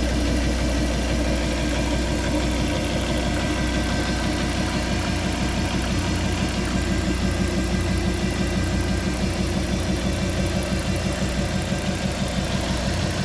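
Fiat Coupé 20V Turbo's turbocharged five-cylinder engine idling steadily, carrying the noise that its owner calls strange.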